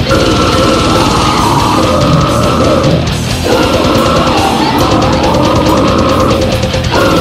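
Brutal death metal: heavily distorted guitars over fast drumming, with short breaks in the riff about three seconds in and again near the end.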